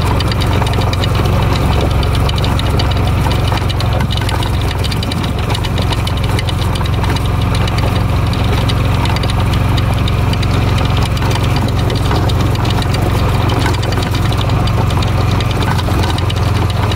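Small engine of an open golf-cart-style vehicle running steadily while driving along, a constant low drone.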